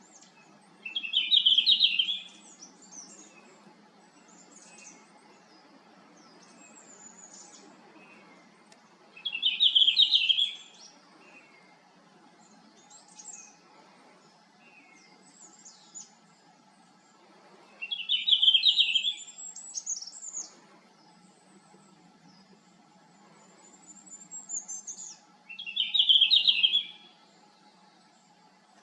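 Red-flanked bluetail singing: four short warbled song phrases spaced about eight seconds apart, with fainter high, thin bird notes in between.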